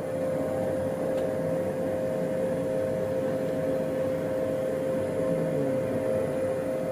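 Ambient sound inside the Airbus A220 cockpit: a steady hum with one held mid-pitched tone over an even, fan-like hiss, which has an unusual, spaceship-like quality.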